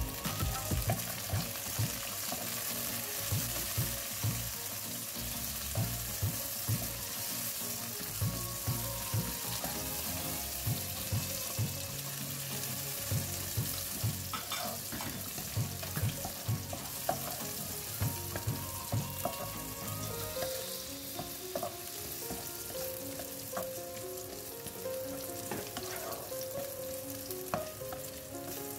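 Sliced shallots, garlic, red chilies and meatballs sizzling in hot oil in a nonstick wok, stirred with a wooden spatula. The spatula scrapes and knocks against the pan often, most of all in the first two-thirds.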